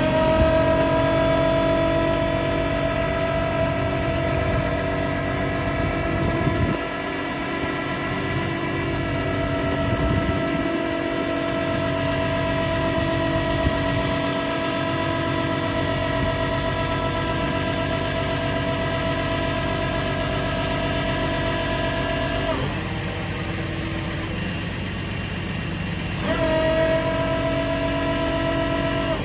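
Rollback tow truck's hydraulic winch system whining steadily under load as a car is pulled up the tilted bed, over the truck's idling engine. The whine stops for a few seconds about three-quarters of the way through, then starts again.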